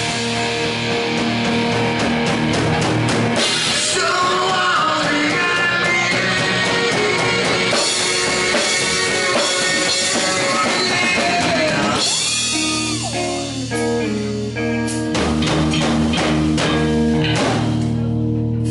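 Live rock band playing: electric guitars and a drum kit with a lead singer. The drums drop out for a few seconds past the middle, leaving the guitars, then the full band comes back in near the end.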